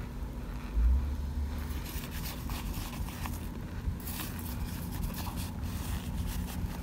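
Plastic spoon scraping and crunching through a pan of baked cornstarch chunks, a run of faint crackly crunches starting about one and a half seconds in. A low bump about a second in, over a steady low hum.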